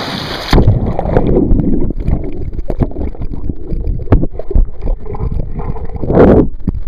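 Water splashing, then about half a second in the camcorder goes under the pool surface and the sound turns muffled and low, with knocks and bubbles from the water and the hand around the camera. A louder rush of water comes near the end.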